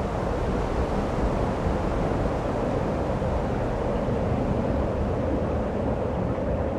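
Steady rushing noise, heaviest in the low range and without any distinct tone, holding an even level throughout.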